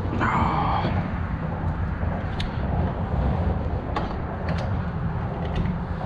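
A brief squeaky creak about a quarter second in, then a few light clicks and knocks, over a steady low rumble, as a kayak's anchor rope is hauled and handled.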